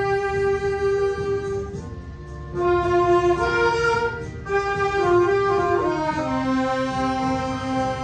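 A small saxophone ensemble playing a slow tune in harmony, with long held notes. The playing dips briefly about two seconds in, moves through changing notes, then settles on a long, lower held note near the end.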